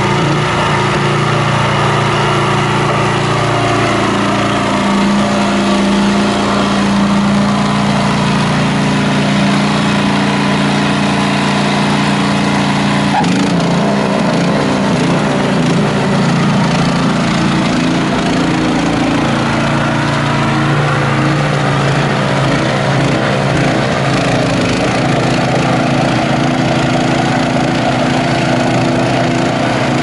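Honda HSS1332ATD two-stage track snowblower running steadily, its single-cylinder GX390 engine under load while the auger and impeller clear and throw wet snow. The engine note shifts slightly about halfway through.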